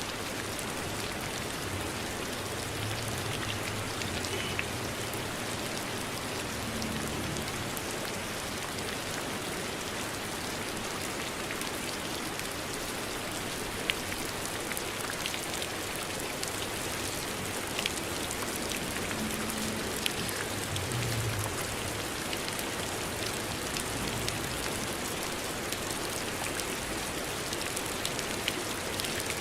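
Steady rain falling, a continuous hiss of drops with a few sharper, louder drop ticks here and there.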